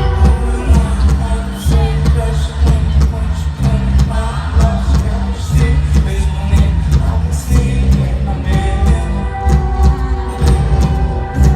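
Live concert music over a PA: a hip-hop track with a heavy bass line of long held notes that change about once a second, a sung vocal, and a crisp beat.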